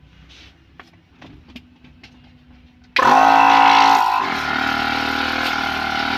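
Small 12 V piston air compressor's electric motor switched on about three seconds in: it starts at once, with no cranking, and runs loud and steady, its pitch sagging briefly just after the start. Before that, a few light clicks of handling.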